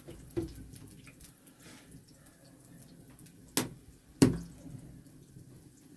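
Three short, sharp knocks, the loudest about four seconds in with a brief low ring.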